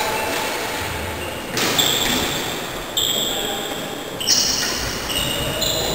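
Floorball play in an echoing sports hall: shoes squeak on the hall floor several times, with knocks from the ball and sticks.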